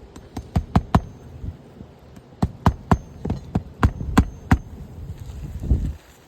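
Hand hammer driving a roofing nail through an asphalt shingle: about a dozen sharp blows, a quick run of four, a pause, then eight more, with a duller thud near the end.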